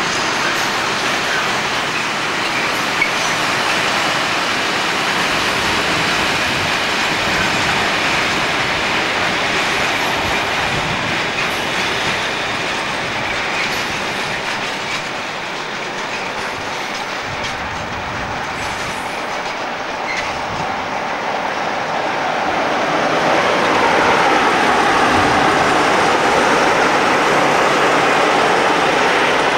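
A train running past on the track, its wheels and wagons making a continuous rolling rail noise that grows louder about 23 seconds in.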